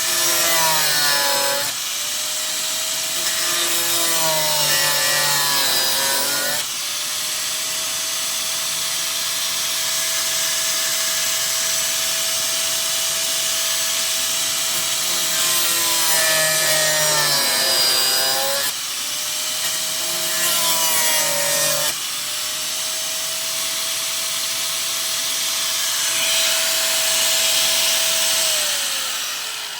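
Electric rotary burr grinding out rusty steel body panel: a steady high motor whine that drops in pitch four times as the burr bites into the metal, with a harsh cutting rasp. Near the end the tool is switched off and winds down.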